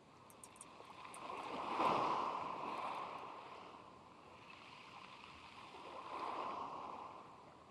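Small waves breaking and washing up the shore, swelling twice: loudest about two seconds in and again around six seconds in.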